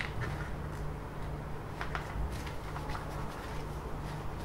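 Handling noise from a white 3D-printed TPU phone case: a few faint clicks and rubs as it is worked over by hand, above a steady low hum.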